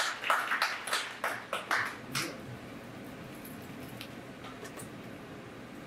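A small audience clapping in scattered hand claps that thin out and stop about two seconds in, leaving quiet room tone.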